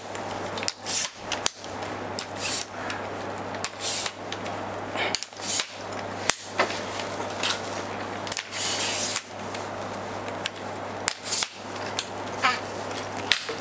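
Simpex VCT 690 tripod being extended by hand: irregular clicks, knocks and rubbing as its telescoping legs and centre column are pulled out and their locks worked, over a low steady hum.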